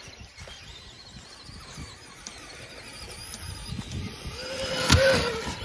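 Brushless electric motor of a Traxxas RC monster truck whining as it drives across grass, growing louder toward the end, with the pitch bending up and down. There is a sharp knock about five seconds in.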